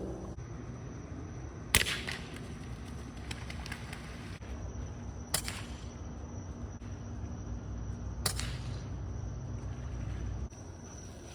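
Three air rifle shots, about three seconds apart, each a sharp crack with a brief ring after it; the first is the loudest. A low steady rumble runs underneath and drops away near the end.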